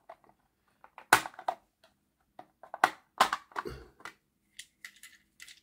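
Plastic body shell of a Hornby Class 56 model locomotive being prised off its chassis: a run of sharp plastic clicks and crackles as the side clips give, the strongest about a second in and near three seconds, then lighter ticks.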